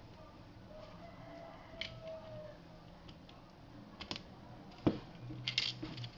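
Scattered clicks and knocks of a stapler's metal and plastic parts being handled and pressed back together; the loudest knock comes about five seconds in, followed by a quick cluster of clicks.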